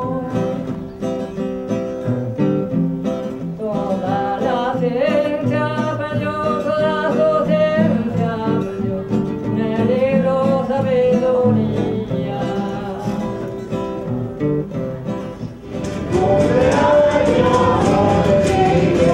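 Several voices singing a song together to strummed and plucked acoustic guitar. About sixteen seconds in it cuts abruptly to a larger group singing, fuller and louder.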